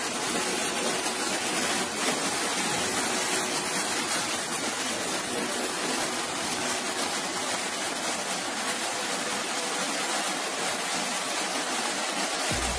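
Amla jam of gooseberry, jaggery syrup and ghee sizzling and bubbling in a nonstick pan: a steady hiss.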